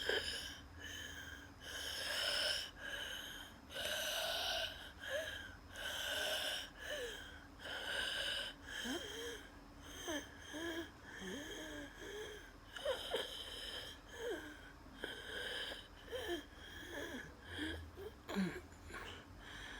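Asthmatic wheezing: laboured breathing about one breath every second or two, each breath carrying a high whistling wheeze, with short squeaky whistles in the second half. The wheeze is the sign of airways narrowed in an asthma attack.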